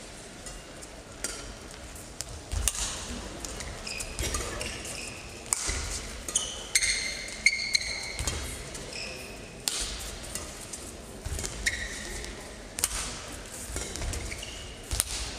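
Badminton rally: sharp cracks of rackets striking the shuttlecock, with short high squeaks of players' shoes on the court mat.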